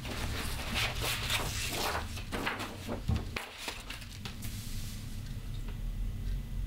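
Large sheets of drawing paper rustling and sliding as they are lifted and leafed through, busiest in the first three seconds, then only a few faint handling sounds over a low steady hum.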